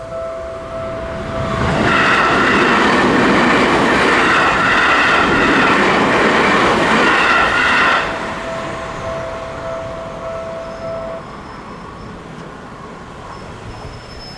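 An electric commuter train on the Seibu Haijima Line passes over a level crossing, loud for about six seconds with a steady high whine over the rail noise. Throughout, the crossing's warning bell rings in a steady repeating tone. The bell stops about eleven seconds in, after the train has gone by.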